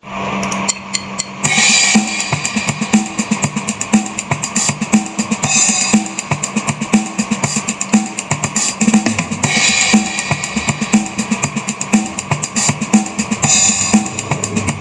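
Background music with a steady drum-kit beat, with a cymbal wash coming back about every four seconds.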